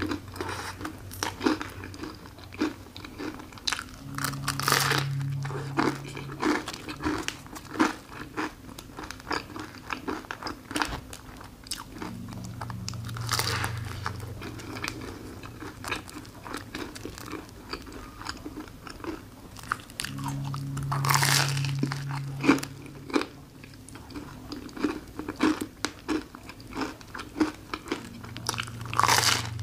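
Close-up crunching and chewing of a crisp folded waffle shell filled with fresh raspberries and cream, with louder crunchy bites about every eight seconds.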